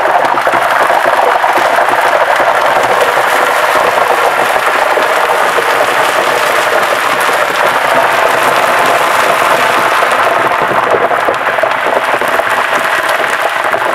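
Hot oil in an electric deep fryer sizzling and crackling steadily and densely as water from a melting ice cube boils off in it.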